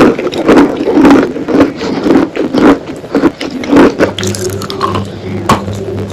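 Close-miked chewing of a big piece of wet eating chalk: wet, crunchy mouth sounds at about two chews a second, then a fresh bite near the end. From about four seconds in, a steady low hum sits underneath.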